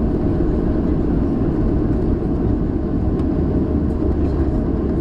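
Boeing 737 engines and airframe heard from inside the passenger cabin as a steady low rumble while the plane taxis.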